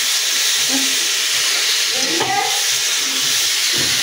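Fish curry with potato and ridge gourd sizzling in a pan: a steady frying hiss. A faint voice comes through briefly about two seconds in.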